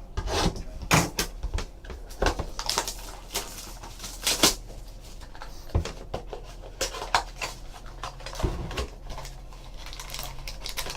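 Handling and opening a sealed trading-card box: irregular clicks, taps and crackles of cardboard and plastic wrapping.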